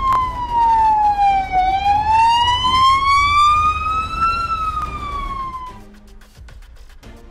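Emergency vehicle siren in a slow wail: the pitch falls, climbs for about three seconds, then falls again before cutting off abruptly about six seconds in, over a low rumble.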